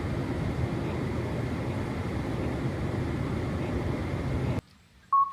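Steady low rumbling noise that cuts off abruptly near the end, followed by a brief high-pitched tone.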